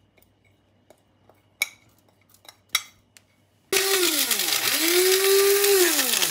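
A few light taps, then, a little under four seconds in, an electric blade spice grinder starts grinding whole spices and green cardamom. It runs in pulses: the motor's pitch sinks and climbs back twice as it is let go and pressed again.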